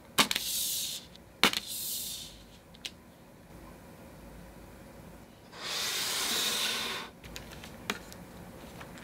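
Paper prints being handled and slid on a table: two short paper swishes, each opening with a light tap, in the first two seconds, then a longer swish past the middle, with a few small knocks between.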